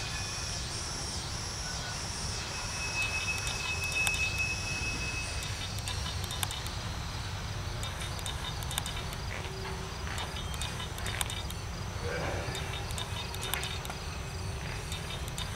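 Loaded coal hopper cars of a freight train rolling past: a steady low rumble of steel wheels on rail, with scattered sharp clicks. Insects trill in a steady, rapid pulse behind it.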